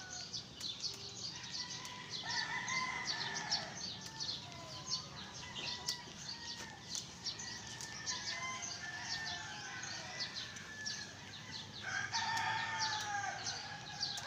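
Roosters crowing, several long crows, over many short high chirps of small birds.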